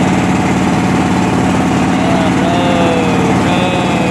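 A small engine running steadily at an even speed, with a fast, regular firing pulse.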